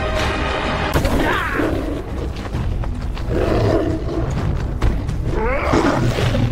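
Lion roaring and snarling in three separate calls, about a second in, in the middle and near the end, over dramatic music with a deep rumble.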